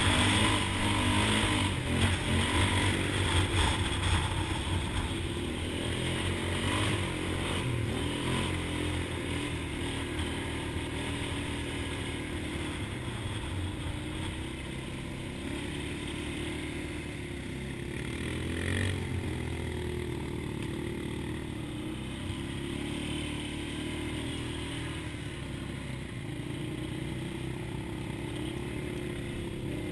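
Off-road vehicle's engine running as it drives over rough trail, with knocks and rattles over the first few seconds, then a steadier drone.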